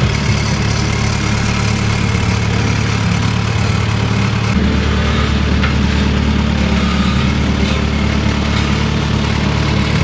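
Road roller's engine running steadily as the steel drum rolls slowly forward. The engine note changes abruptly about halfway through.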